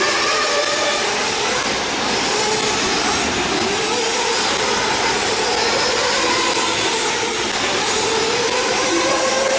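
Several 1/8-scale nitro RC buggies racing at once, their small two-stroke glow engines running together as overlapping engine notes that rise and fall in pitch as each car throttles up and lets off.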